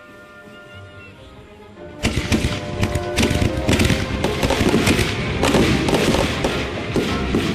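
Consumer aerial fireworks going off in a rapid, dense barrage of bangs and crackles, starting suddenly about two seconds in and loud, over background music.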